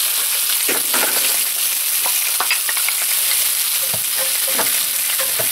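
Food frying with a steady sizzle, while a wooden spatula stirs and scrapes garlic fried rice in a skillet, giving a few irregular knocks and scrapes.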